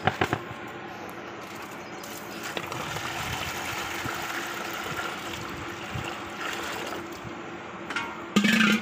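Water pouring and splashing into a plastic tub of feed pellets, soaking them, a steady gushing hiss. A few sharp knocks at the start and a brief loud burst near the end.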